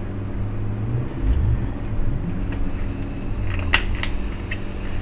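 A low steady hum, with one sharp click near the end.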